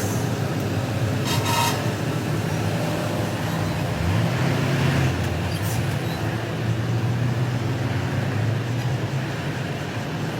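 Engine running steadily amid traffic noise; its low hum shifts in pitch about four seconds in.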